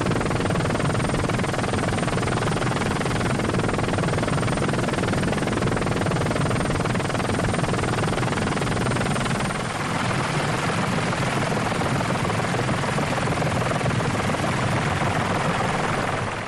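Helicopter running steadily: a loud, even rush of rotor and engine noise, with a slight dip about ten seconds in.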